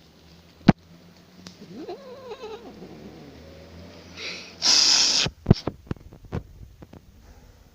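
Domestic cat making short wavering calls about two seconds in, followed by a loud half-second burst of noise and several sharp knocks.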